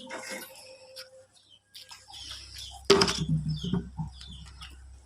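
Birds chirping and a chicken clucking, with a sharp knock about three seconds in.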